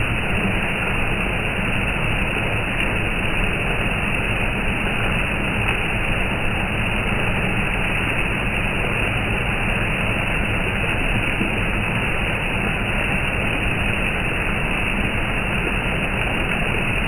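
Calm, steady rain falling, an even hiss with no thunder or gusts of wind.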